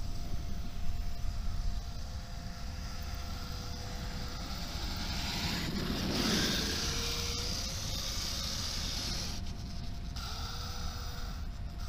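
Steady whine of a hovering multirotor drone carrying the camera, with a second motor tone that shifts in pitch now and then, over low wind rumble on the microphone. About six seconds in, a louder rushing noise swells and fades as the camera drops low over the RC monster truck.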